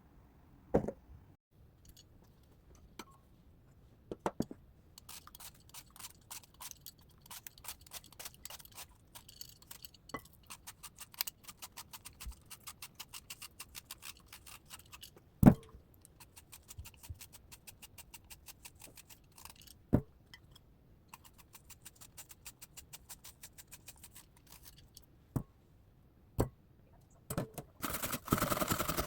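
Rapid, even light clicking of a kitchen utensil against a bowl, with a few sharper single knocks. A denser clatter starts near the end.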